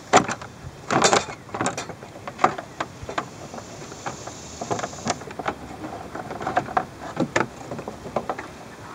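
Engine fan and fan clutch turned by hand to unthread the clutch from its shaft, with irregular metal clicks and knocks as it turns.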